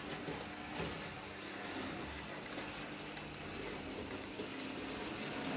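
H0-scale Märklin model locomotive running along the layout's track: a steady running noise with a faint hum and a few light clicks.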